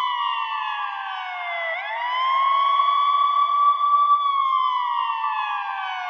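Ambulance siren wailing, processed to sound as if heard underwater. A held high tone slides slowly down, sweeps quickly back up about two seconds in, holds, then slides slowly down again near the end.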